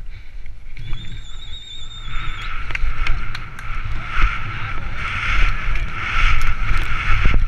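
Helmet-camera audio of a mountain bike descending a rough dirt trail: a steady rumble of wind on the microphone and clicks and rattles from the bike over bumps. A short warbling whistle sounds about a second in, and a louder rushing hiss sets in about two seconds in.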